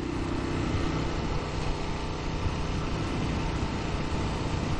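Ducati Monster 1200 R's L-twin engine running steadily while cruising, with wind rushing over the microphone.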